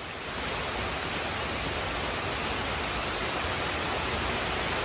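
Steady rush of running water, an even, unbroken noise.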